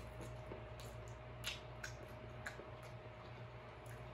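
Faint eating sounds from king crab legs: a few scattered, short, sharp clicks and soft wet smacks of chewing. They sit over a steady low hum.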